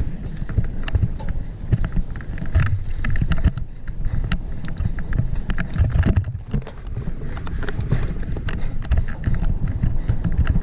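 Full-suspension mountain bike rattling and clattering over a bumpy dirt singletrack at speed, with many quick, irregular knocks. A steady low rumble of wind on a helmet-mounted camera's microphone runs underneath.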